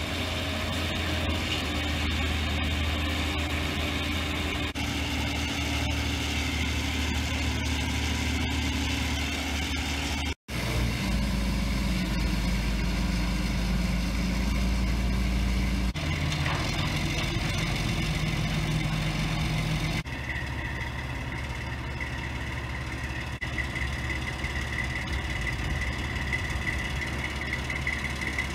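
Mobile crane's engine running steadily while the crane holds its hook and lifting sling. The sound changes abruptly a few times, and a thin high steady whine comes in for the last several seconds.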